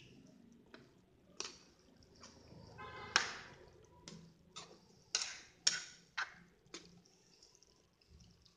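A spatula scraping and clinking against a metal wok while vegetables in sauce are stirred: about half a dozen sharp, irregular strokes, one about three seconds in ringing briefly.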